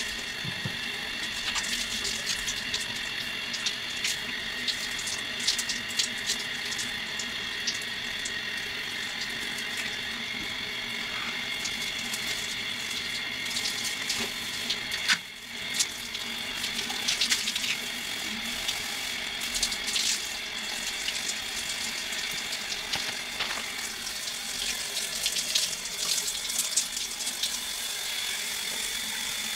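Shower water running steadily, spattering with many small irregular splashes, with a brief drop about halfway through.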